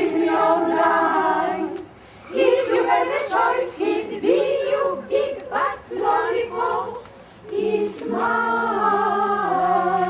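Amateur mixed choir of older singers singing a cappella in sustained, held chords, phrase by phrase, with a brief breath break about two seconds in and another past the middle.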